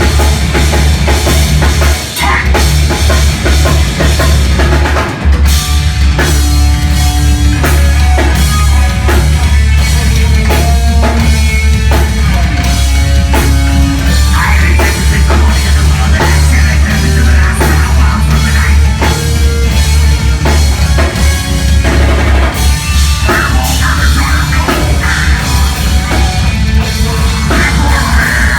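Heavy metal band playing live at full volume: a pounding drum kit with heavy bass drum under dense rock instruments.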